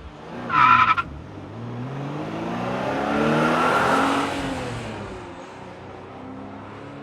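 A short tyre squeal, then a car engine rising in pitch and loudness to a peak about four seconds in before falling away, like a car revving past.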